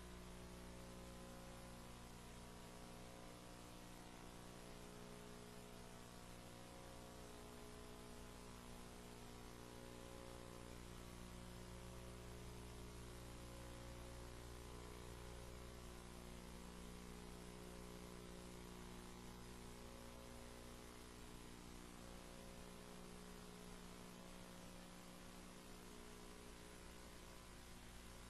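Near silence: a steady, faint electrical mains hum with light hiss.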